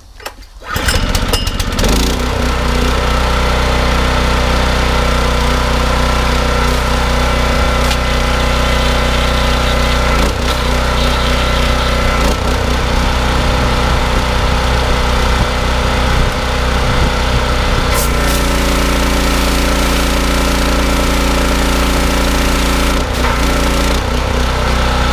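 Pull-start 7 hp Loncin petrol engine of a pressure washer starting about a second in and then running steadily at full speed. Its triplex pump is priming with no nozzle fitted, drawing water up the suction hose while the air clears out of the line. The running note changes about eighteen seconds in.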